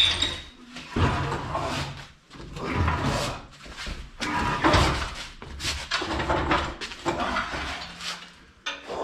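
Irregular clatter, knocks and scraping of tools and parts being moved about and put away in a garage shop, in uneven bursts with short pauses.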